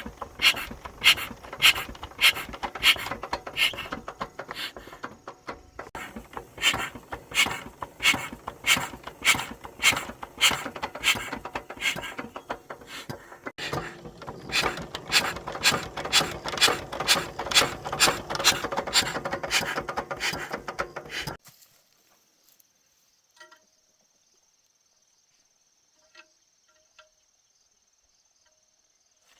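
Rhythmic scraping strokes, about two a second, that stop abruptly about 21 seconds in. A steady high chirring, like crickets, and a few faint ticks follow.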